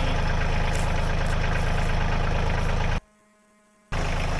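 An engine idling steadily. About three seconds in the sound cuts out abruptly for about a second of near silence, then the same idle resumes.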